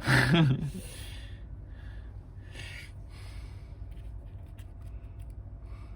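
A man's voice trailing off in a breathy sigh at the start. After that, faint short rustling and scraping noises over a low steady hum.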